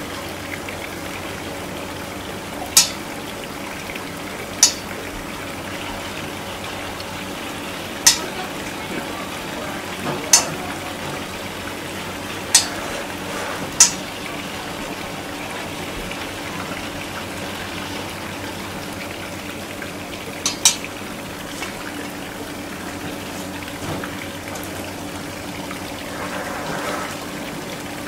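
Metal tweezers clicking sharply every few seconds against a split sea urchin shell as it is cleaned out, over a steady hiss with a low hum.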